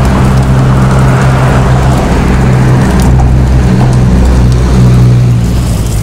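Meltwater falling from a roof edge and splattering, heard as an even patter of drops, over a loud steady low hum.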